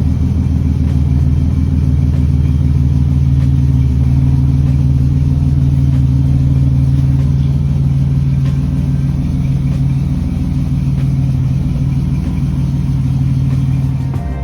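A car engine running at a steady idle, low and even, fading out near the end.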